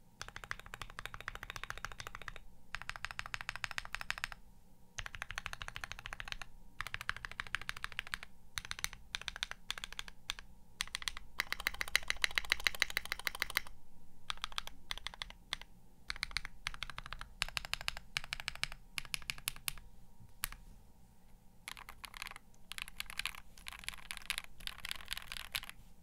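Typing on a mechanical keyboard: a Brutal60 with Akko CS Matcha Green linear switches and Akko ASA-profile doubleshot PBT keycaps. The keystrokes come in fast runs with several short pauses.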